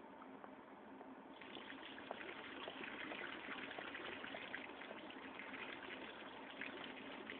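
Small tiled garden fountain switching on about a second and a half in: thin jets from the central spout splash steadily into the shallow basin.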